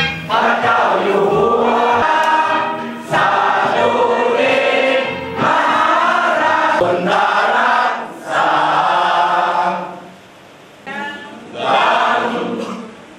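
A large group of people singing together in unison, in phrases a few seconds long with short breaks between them and a longer pause about ten seconds in.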